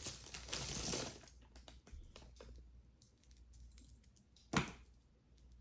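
Crinkling of packaging in the first second as jewelry is handled, then light clicking of beads and metal clasps, with one sharp clack about four and a half seconds in.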